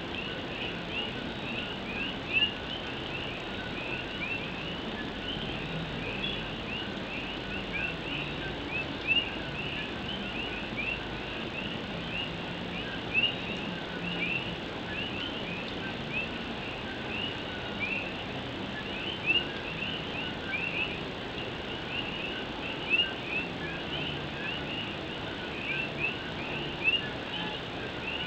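A dense chorus of Puerto Rican coquí frogs, many short rising chirps overlapping without pause, over the steady patter of rain on a tin roof. A louder single sound stands out about every four to six seconds.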